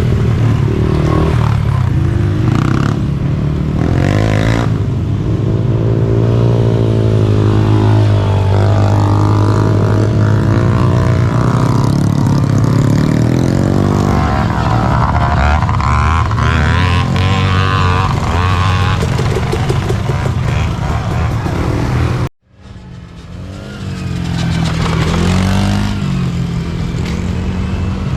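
Several small youth ATV engines racing, their pitch rising and falling with the throttle. The sound cuts out for a moment about three-quarters of the way through, then the engines come back.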